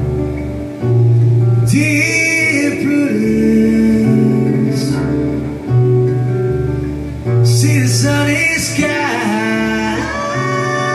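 Acoustic guitar playing chords while a man sings over it. The singing comes in two phrases, the first about two seconds in and the second a little past the middle.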